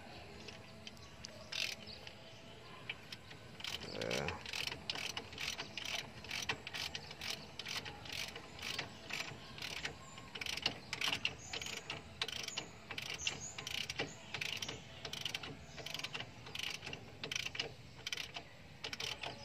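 Hand tools working on metal: a run of light, irregular clicks, roughly one to two a second, during reassembly of the van's wheel hub and swing arm.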